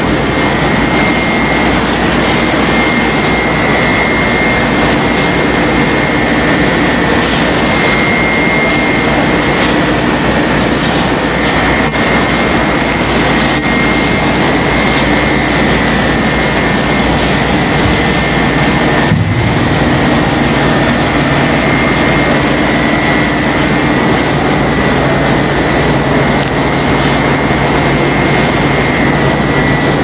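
Rice husk-fired steam boiler plant running: a loud, steady machinery roar with a thin, steady high whine over it, breaking off for an instant about two-thirds of the way through.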